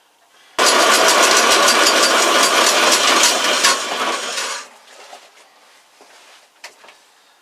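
Power saw cutting through a piece of wood: a loud, even cutting noise that starts abruptly about half a second in and stops after about four seconds.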